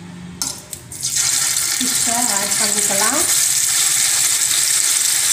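Marinated anchovies sizzling as they go into hot coconut oil to fry. The loud frying hiss starts about a second in and holds steady while they are stirred.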